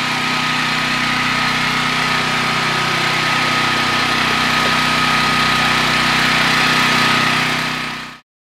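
Dual-fuel Westinghouse portable generator running steadily on propane: an even engine drone with a thin, steady high whine over it. It fades out just before the end.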